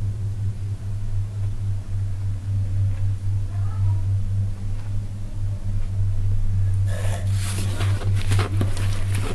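A steady low electrical-type hum, with a faint voice in the background. From about seven seconds in comes a run of crackling and rustling handling noise.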